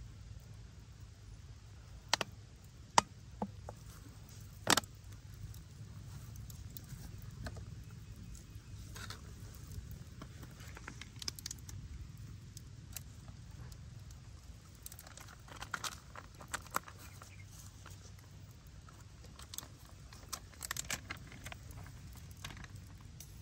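Handling noise of plastic sauce bottles and their caps over a stone mortar: scattered sharp clicks and taps, the loudest about five seconds in, with small clusters later, over a low steady hum.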